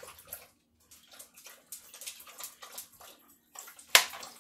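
Plastic clicks and rattles as the locking cover of a Tupperware microwave pressure cooker is taken off and the lid lifted, with one sharp knock near the end.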